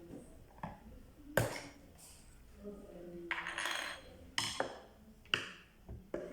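Hard objects being handled: about five sharp clicks and knocks, with a short scraping rustle about three and a half seconds in.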